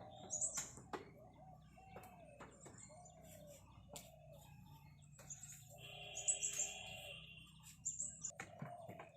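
Small birds chirping in short high bursts, mixed with repeated lower animal calls and a few sharp clicks.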